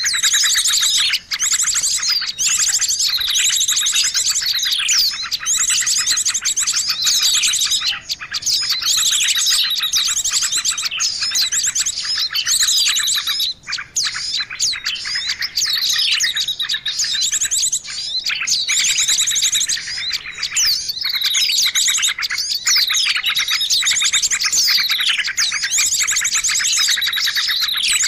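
Bird-trapping lure recording: a dense, continuous mix of small songbird calls, with rapid high-pitched chirping and trills and repeated falling whistles, meant to draw small birds in.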